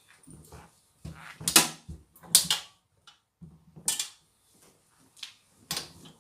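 Laundry being handled and stuffed into a front-loading washing machine drum: bursts of rustling and shuffling, the loudest about a second and a half in, near the middle and near the end.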